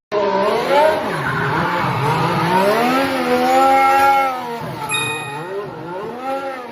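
Racing car engine revving hard, its pitch swinging up and down several times before fading away in the last couple of seconds.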